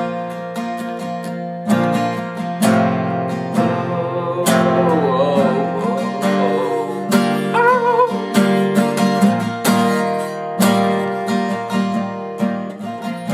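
Acoustic guitar strummed, one chord about every second, with a wordless voice wavering along in the middle.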